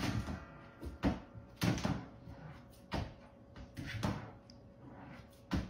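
Lid of a stainless steel kitchen trash can knocking and clunking as a puppy paws at it and lifts it open: a series of short knocks, roughly one a second.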